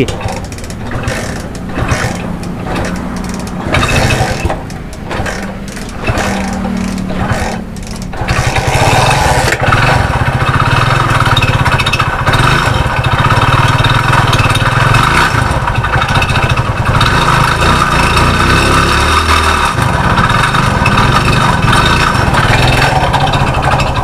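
Hero Honda Splendor's single-cylinder four-stroke engine being kick-started. It runs unevenly for several seconds before catching about eight seconds in, then runs steadily with a dip about twenty seconds in. The engine keeps cutting out and makes a lot of noise, which the mechanic traces to the crank, where worn connecting-rod bearing and pin raise engine noise.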